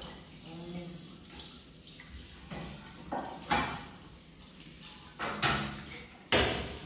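Washing up at a kitchen sink: water from the tap splashing while a metal bowl and pan are handled, with several sharp clatters and splashes in the second half, the loudest near the end.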